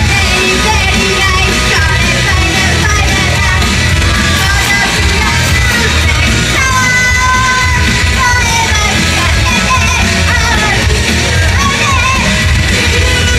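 Loud live pop-rock music with singing and shouts over heavy drums and bass, heard from inside the crowd at a club show.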